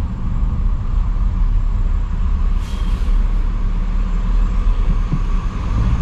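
Low, steady rumble of a large vehicle's engine in street traffic, with a short hiss about two and a half seconds in.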